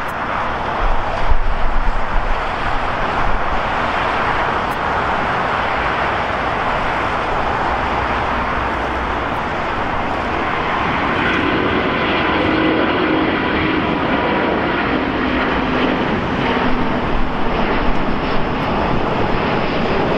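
Jet engines of an Airbus A350, its Rolls-Royce Trent XWB turbofans, at takeoff power: a steady roar as the airliner takes off and climbs out. From about eleven seconds in, a steady engine whine stands out over the roar.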